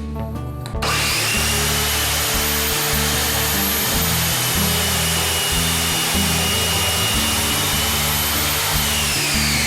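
Ozito 210mm 1600W compound mitre saw's electric motor switching on about a second in and running at full speed with a high, steady whine. Near the end the whine falls in pitch as the blade winds down.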